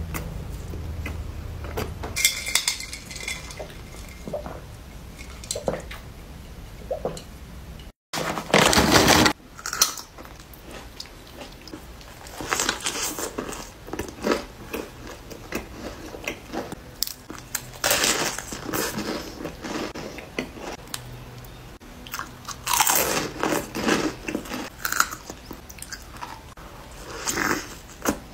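Close-up eating sounds: chewing, then a series of crisp bites into a flatbread wrap stuffed with fresh vegetables, each followed by crunchy chewing. The loudest is a crunch about a second long, about eight seconds in, right after a brief break in the sound.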